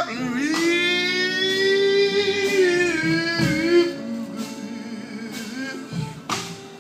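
A man belting one long sung note, bending slightly upward, for about three seconds over guitar, in a live blues performance; quieter held notes follow.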